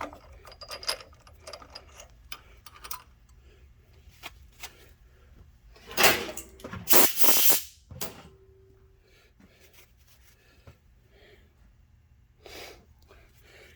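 Light clicks and knocks of a metal tap and tap wrench being handled, with two short, loud bursts of hiss about six and seven seconds in, then little more than faint handling.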